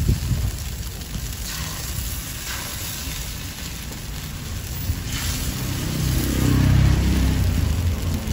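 Rice-flour batter sizzling in a hot multi-cup pancake mold over a wood fire, a steady hiss. A low engine rumble, like passing traffic, swells in the second half.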